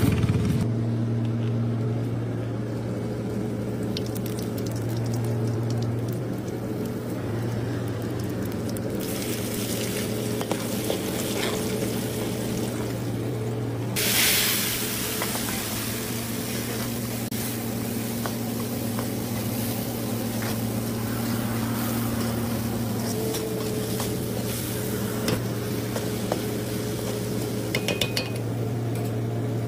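Chopped onions and tomatoes frying in hot oil in a large aluminium kadai. The sizzle sets in about a third of the way through and jumps to a loud hiss when the tomatoes are tipped in about halfway, then goes on steadily, with a steel ladle clinking and scraping against the pan over a steady low hum.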